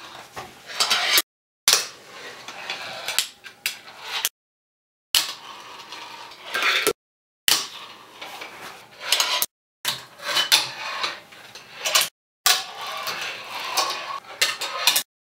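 Fingerboard rolling on granite with sharp clacks of the board popping and landing, in six short takes, each cut off abruptly into dead silence.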